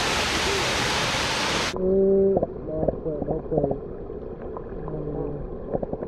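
Waterfall splashing into a rock pool: a steady rush that cuts off suddenly a little under two seconds in. It gives way to muffled sound from under the water: scattered clicks and taps, with a few short pitched hums.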